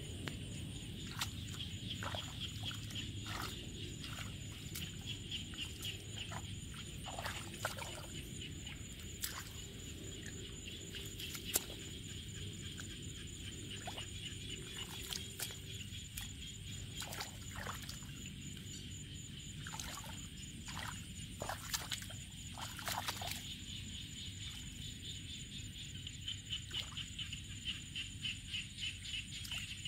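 Hands sloshing and squelching through shallow muddy water, with irregular small splashes, over a steady high pulsing chirr.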